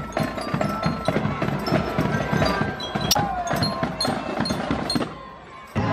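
Carnival marching band playing: drums beating a quick, steady rhythm with glockenspiel notes ringing over it. The sound drops away for a moment shortly before the end.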